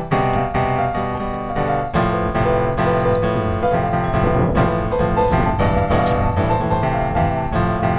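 Background music led by piano, with a steady flow of struck notes.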